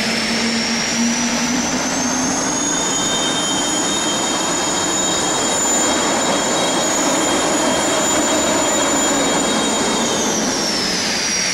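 Modified pulling tractor's engine running at full power while dragging a weight sled, with a high whine that rises over the first two seconds, holds steady, then falls away about ten seconds in as the run ends.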